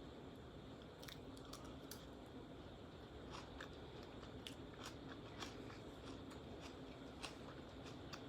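A person chewing and crunching a crab and avocado salad close to the microphone: faint mouth sounds with sharp little clicks and crunches every half second to second or so.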